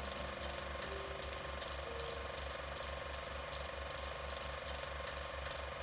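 Steady mechanical clatter of a running film projector, about five even beats a second, with a faint steady whine under it.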